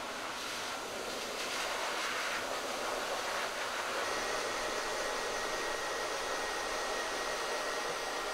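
Hose-fed pet grooming dryer blowing air steadily, a constant rush with a faint high whine coming in about halfway.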